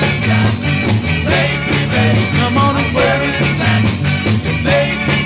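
An upbeat soul record playing, with a stepping bass line, a steady drum beat and short sung or melodic phrases between the lead vocal lines.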